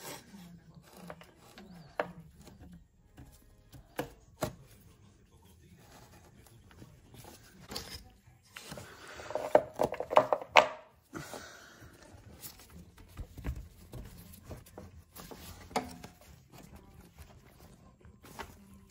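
Hand tools and engine parts being handled: scattered clicks and light knocks, with a louder, noisier stretch of rattling and hiss about nine to eleven seconds in.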